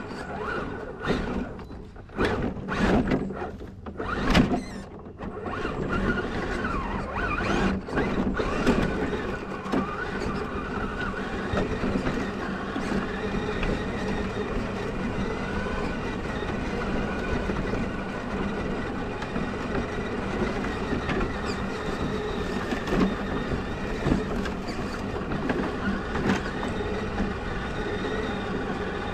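A 1/10-scale electric RC crawler truck (Element Enduro Trail Runner) heard close up from a mount on the truck itself: its motor and gears whine while the chassis knocks and scrapes over rough ground. There is a cluster of sharp knocks in the first several seconds, then steady running.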